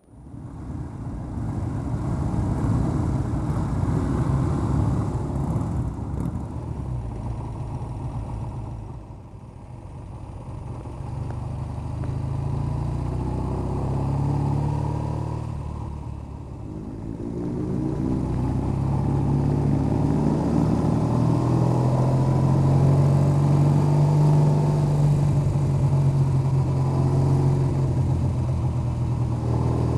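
Motorcycle engine heard from the saddle as the bike is ridden along a lane. The engine note eases off twice, about a third and about halfway through, then builds again and holds a steady pull.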